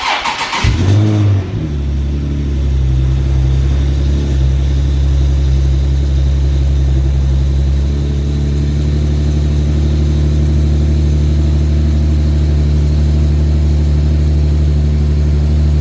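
Infiniti G37's V6 engine starting: a short burst of starter cranking, a quick rev flare about a second in, then a steady idle.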